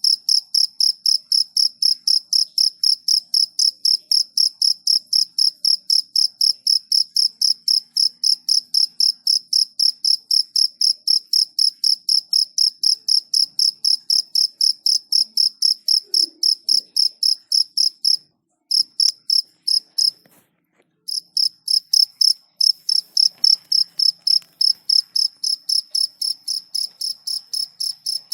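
A cricket chirping in a fast, even, high-pitched pulse train. It stops briefly about two-thirds of the way in, then resumes.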